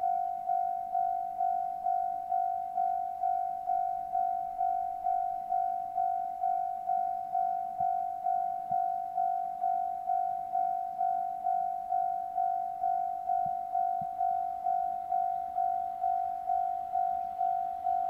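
Electronic level-crossing warning bell ringing a steady single-pitched ding at about two strikes a second, the signal that a train is approaching the crossing.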